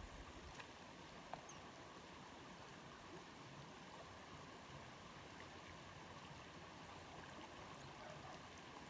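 Faint, steady rush of a flowing stream.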